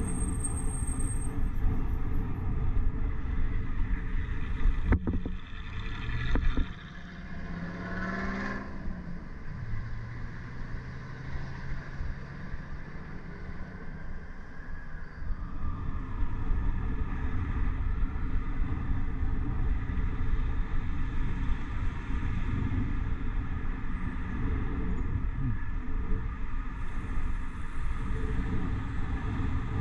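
City street traffic heard from a moving bicycle, with wind rumbling on the microphone throughout. About seven seconds in, a nearby engine revs up in a rising pitch, and a sharp click sounds shortly before it.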